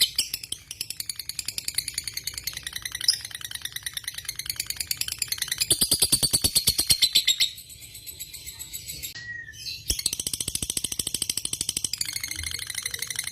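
Lovebird singing a long, fast run of repeated chirps, many notes a second in a rattling trill. The run eases off for about two seconds past the middle, then picks up again.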